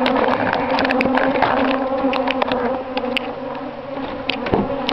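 Honeybees buzzing close by: a steady, even drone, with a few light clicks scattered through it and a duller knock about four and a half seconds in.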